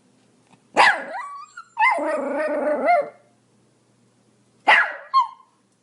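Pomeranian barking: a sharp bark that drops in pitch, then a longer held bark of about a second, then another sharp bark near the end.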